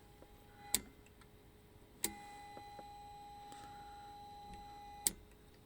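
Switch clicks on a TriStar 790DX CB radio's front panel: one click, then about two seconds in another click starts a steady, faint tone that holds for about three seconds and stops with a third click.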